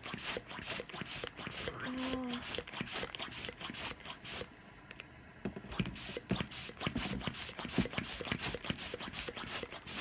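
Hand-operated balloon pump pumped fast, giving short hissing puffs of air at about three strokes a second, with a brief pause about halfway through.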